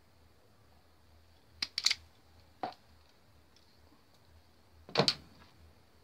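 A few sharp clicks and snaps of handling while wires are worked on in a fan's plastic motor housing: a quick cluster about two seconds in, a single click a little later, and the loudest double click near the end.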